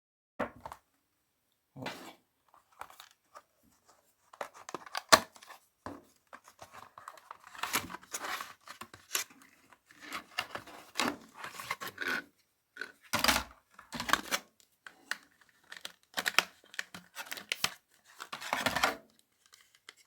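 Packaging for an SSD being torn open and handled, tearing and rustling in irregular bursts, with one sharp click about five seconds in.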